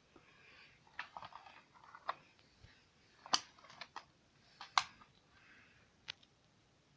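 A handful of sharp clicks and light rustling handling noise, the two loudest clicks a little over a second apart near the middle.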